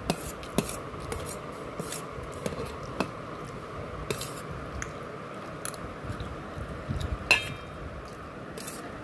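A metal spoon scraping and clinking against a steel plate while vermicelli is scooped up. The clinks are scattered, and the loudest comes about seven seconds in with a brief ring.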